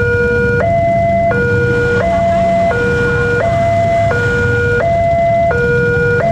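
Railway level-crossing warning alarm sounding a loud electronic two-tone signal, switching between a higher and a lower tone about every two-thirds of a second, the warning that a train is approaching while the barrier is down.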